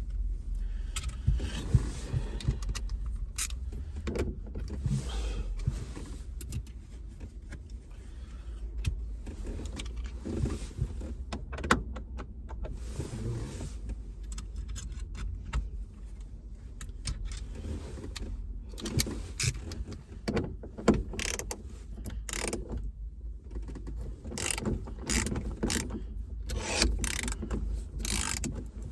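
Hand tools working on a car's interior trim fixings: irregular clicks, knocks and rattles of a screwdriver or socket tool, screws and plastic trim being handled. The clicks come thickest near the end.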